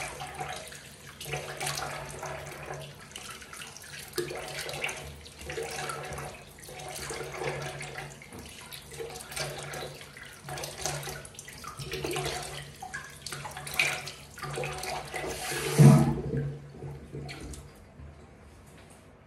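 Bathroom sink tap running, with irregular splashing as hands scoop water over a face to rinse it. A loud splash about three quarters of the way through, after which the running water stops.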